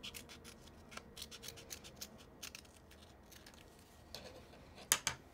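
Small trauma shears snipping through a sheet of Ursa Tape fabric adhesive, a quick run of short crisp snips over the first three seconds, faint. A louder tap comes near the end.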